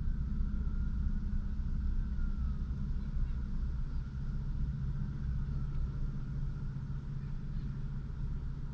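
Steady low rumble, with a faint high tone that wavers slightly up and down behind it.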